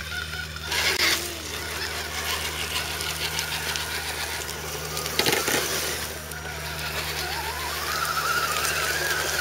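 Electric motors and drivetrains of radio-controlled scale crawler trucks whining as they climb a rutted dirt trail. The sound sits over a steady low hum. There are brief louder scrapes about a second in and again about five seconds in, and a whine rises in pitch near the end.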